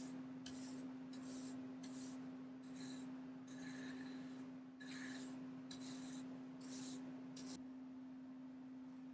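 Hand-worked abrasive strokes on the metal block plane, about a dozen short scrubbing strokes at a little under two a second, stopping a second or so before the end. A steady low hum runs underneath.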